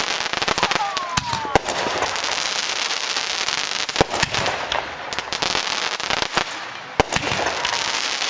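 Aerial firework shells bursting overhead: a steady crackle of many small reports, broken by several sharp bangs, the loudest about a second and a half, four and seven seconds in.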